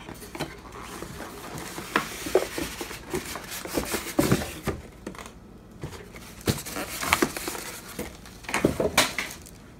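Cardboard packaging and plastic wrapping being handled: a run of irregular light knocks, clicks and crinkling rustles as a box is lifted and moved and a plastic-bagged item taken out, with a louder cluster of knocks near the end.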